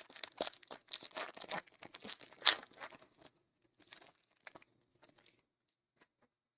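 Panini Illusions football card pack wrapper being crinkled and torn open, a run of crackling tears with the loudest rip about two and a half seconds in, then a few light clicks of handling.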